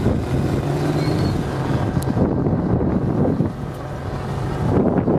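Engine of an off-road competition trial truck running under load as the truck crawls over a steep bank. The note drops off a little past the middle and picks up again near the end.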